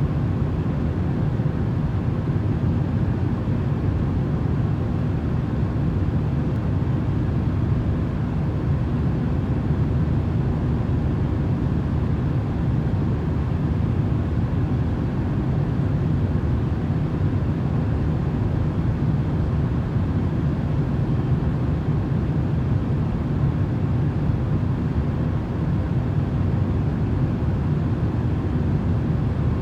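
Continuous sleep noise: a steady, low rumbling hiss, heaviest in the bass, with a faint steady hum and no changes.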